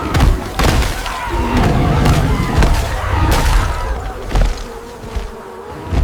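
Buzzing of a bee swarm over a low rumble, with several sharp thuds.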